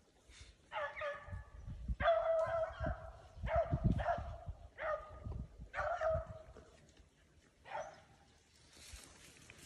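Beagle barking, about six drawn-out barks spread over several seconds, the last one near the end fainter. Low thumps and rustling of brush and footsteps run underneath.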